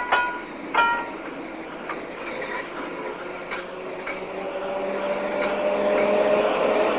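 Tram bell rung twice, then a tram running, its electric motor whine rising slowly in pitch over a growing rumble of wheels, with a few faint clicks.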